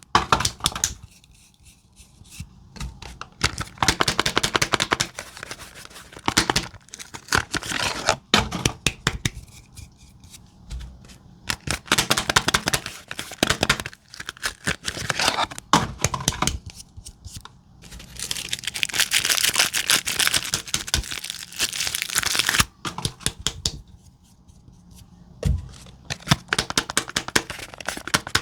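Soap bars being unwrapped by hand: the wrapping crinkles and tears in bursts of crackling, with one longer hissing rustle about two-thirds of the way in.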